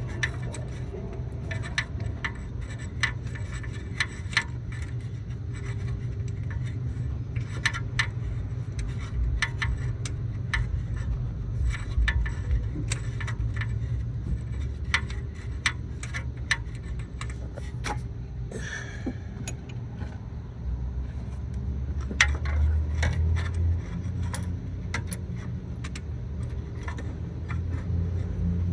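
Metal hand tools clinking and scraping: a spark plug socket and wrench knocking against metal in an engine bay, in irregular sharp clicks over a steady low rumble.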